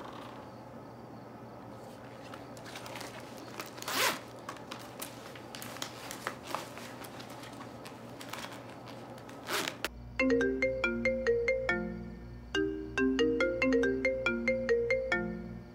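Soft rustling of clothing and handling of a tablet, with a few brief scraping rustles, the loudest about four seconds in and just before the ten-second mark. About ten seconds in, a light melody starts: short, ringing notes in a repeating tinkling pattern.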